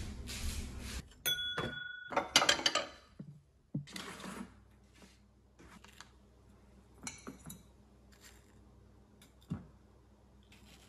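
A metal fork clinking and tapping against a plastic container and a ceramic bowl as pieces of pickled watermelon are lifted out and set down. The clatter is loudest around two to four seconds in, then thins to scattered small clicks and one sharper tap near the end, after a brief stretch of steady noise at the start.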